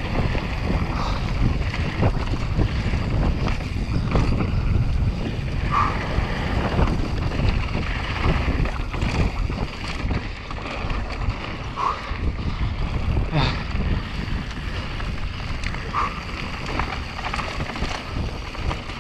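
Wind rushing over the microphone on a mountain bike descending a dry dirt-and-stone trail at speed, with a constant low rumble from the tyres on the ground and many small knocks and rattles from the bike over bumps and stones.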